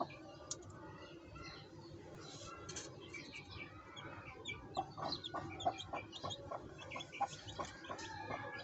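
Chickens: baby chicks peeping in short, rapid high chirps, with clucking; the calls grow denser and louder about halfway through.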